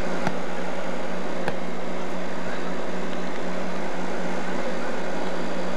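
Two sharp smacks of a volleyball being hit, about a second apart, over a steady hiss and low hum.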